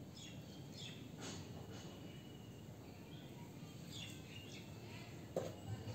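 Faint outdoor ambience with small birds chirping in short, high calls, a few near the start and a cluster about four seconds in, and a single brief knock near the end.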